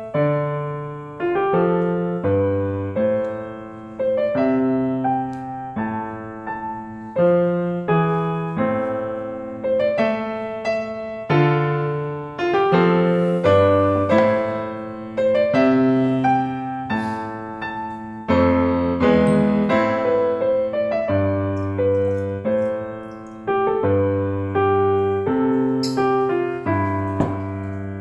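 Background piano music: an unhurried melody over chords and a moving bass line, each note struck and fading away.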